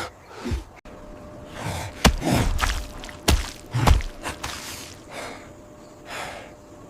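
A person gasping and breathing hard, with a few sharp knocks.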